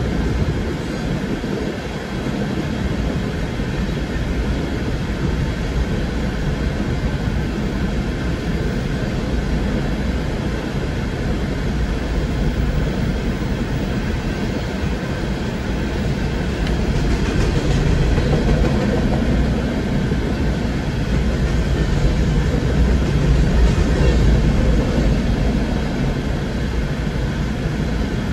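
Empty rock train of open-top aggregate cars rolling through a grade crossing: a steady rumble and clatter of steel wheels on the rails, heard from inside a car, growing a little louder past the middle.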